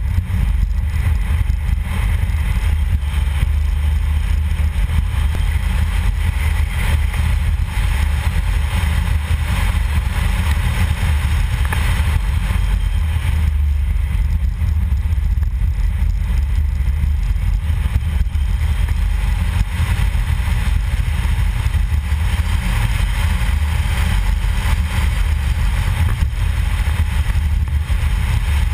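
Car driving along a cracked concrete road, picked up by a camera mounted on the car's bodywork: a steady, loud low rumble of road and wind noise.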